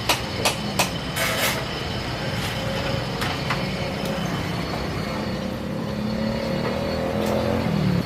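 A few sharp clicks and a short rasp in the first second and a half, then a steady motor-like hum whose pitch wavers slightly.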